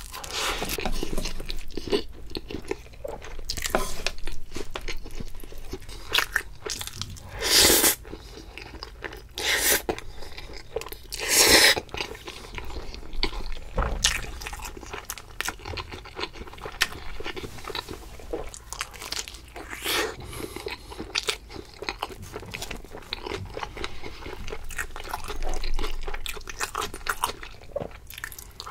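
Close-miked eating: a person biting and chewing food with crunching and many small mouth clicks. About a quarter and two-fifths of the way through come two louder, longer noisy sounds.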